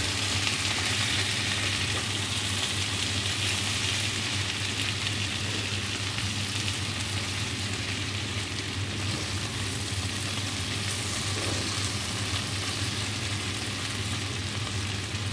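Sliced potatoes, mushrooms and onions sizzling and crackling in hot oil in a frying pan while being stirred and turned with a spatula. The sizzle is brightest in the first few seconds, and a steady low hum runs underneath.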